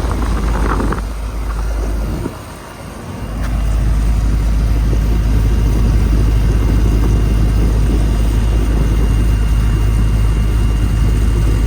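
Comfortmaker central air conditioner outdoor unit running with a steady low hum and fan noise. The sound dips for about a second around two seconds in.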